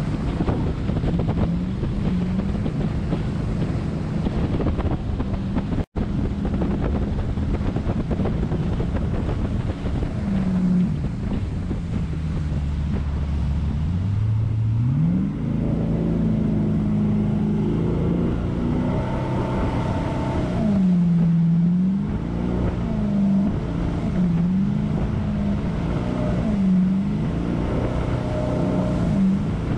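Jet boat engine running at speed, its revs rising about halfway through and then swinging up and down repeatedly as the throttle is worked through rapids, with wind buffeting the microphone and water rushing along the hull.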